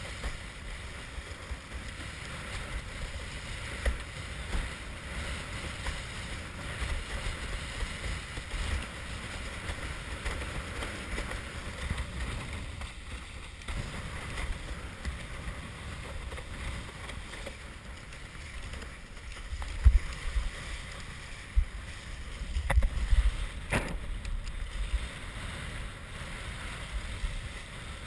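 Wind buffeting a head-mounted camera's microphone over the steady rush and splash of water along a sailing windsurf board. A few brief sharp knocks come in the second half.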